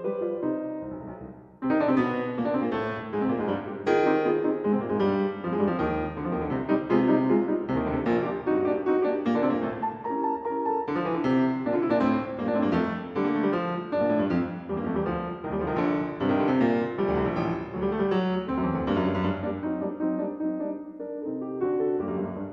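Background piano music, played steadily with many notes, dipping briefly about a second and a half in before fuller playing resumes.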